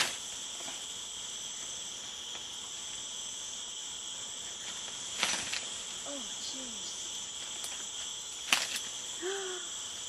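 Steady chorus of rainforest insects, a continuous high buzz at two pitches. Two sharp clicks, about five and eight and a half seconds in, are the loudest moments, and short low wavering calls come near six and nine seconds in.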